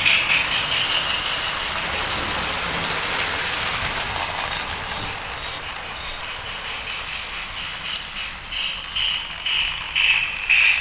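Lionel and Marx tinplate toy trains running on three-rail track: a steady metallic rattle and whir of wheels and motors, with a run of quick clicks about four to six seconds in.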